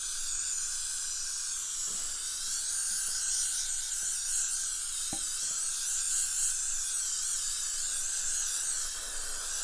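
Got2b Glued aerosol hairspray can spraying in one long, steady hiss, with a couple of faint knocks.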